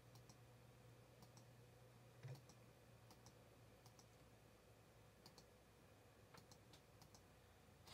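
Faint clicks of a computer mouse, singly and in quick pairs, checking boxes one after another, with a slightly louder knock a little over two seconds in. A faint steady low hum runs underneath.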